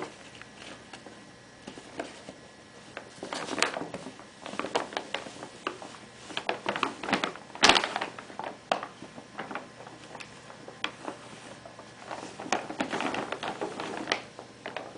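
Brown paper bag crinkling and rustling in irregular bursts as a Siberian Husky puppy bites and tugs at it, with one sharp crackle about halfway through.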